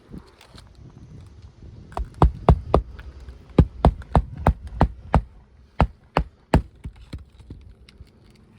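Hammer striking roofing nails into a three-tab asphalt shingle: about a dozen sharp blows in quick, uneven runs, starting about two seconds in and stopping a couple of seconds before the end.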